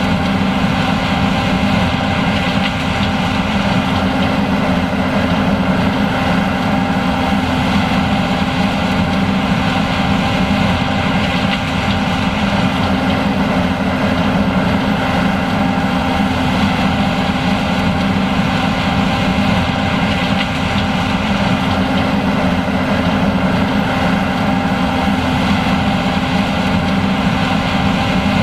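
John Deere S780 combine running steadily while harvesting corn: a constant heavy engine and machinery drone with a few steady whining tones, unchanging throughout.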